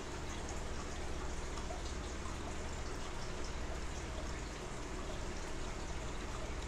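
Aquarium filter water circulating, a steady trickling and splashing over a low constant hum.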